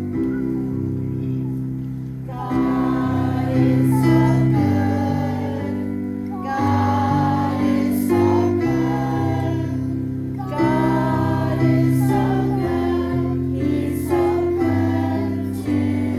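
Church gathering song: voices singing a hymn over sustained keyboard chords. The singing comes in about two seconds in, after a short keyboard passage.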